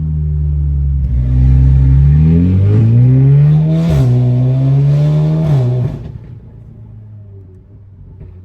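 2019 Audi S3 8V's turbocharged 2.0-litre four-cylinder, with a loud custom exhaust, accelerating hard: the engine note climbs, drops sharply at a gear change about four seconds in and pulls on. About six seconds in the throttle is lifted and the sound falls away to a quiet, low running.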